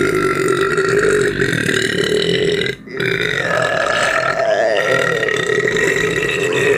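A woman burping long, drawn-out burps: one lasting nearly three seconds, then a brief break, then a second long burp starting about three seconds in, slightly higher in pitch.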